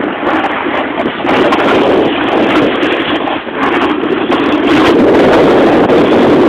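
Loud, steady wind noise buffeting the microphone during a snowboard run.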